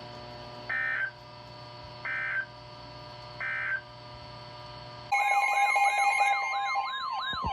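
Emergency Alert System tones opening a new warning. First come three short bursts of the SAME digital header, about a second and a half apart. Then a loud attention alarm starts: steady tones with a tone warbling up and down about three times a second.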